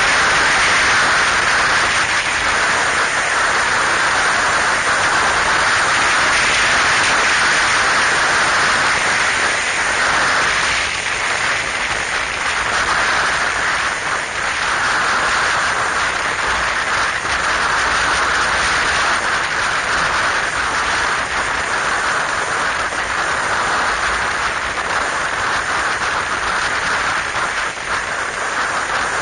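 Wind rushing over the microphone of a camera on a motorcycle moving at road speed: a steady, dense hiss, with no engine note standing out.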